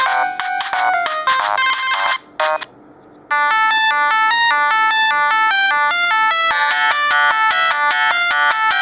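Siemens C65 mobile phone playing polyphonic ringtones through its speaker. One ringtone ends about two and a half seconds in, there is a short near-pause, and a new one starts: a quick electronic melody that fills out with more notes about six and a half seconds in.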